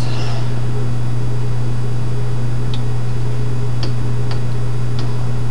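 Steady low electrical hum on the microphone, with a few faint sharp mouse clicks in the second half as the next page of notes is clicked to.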